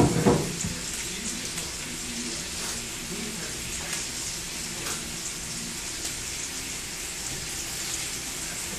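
Pork ribs and backbone frying in a little oil in a pot, a steady sizzle with faint crackles. A brief knock sounds at the very start.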